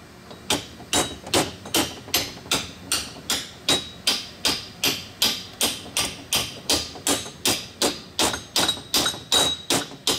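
Steady, evenly paced hammer tapping, about three strikes a second, some strikes with a faint metallic ring.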